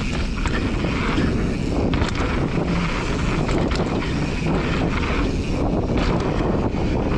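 Mountain bike riding fast down a packed-dirt trail: steady wind rush on the microphone over the tyres rolling on dirt, with scattered rattles and clicks from the bike over bumps.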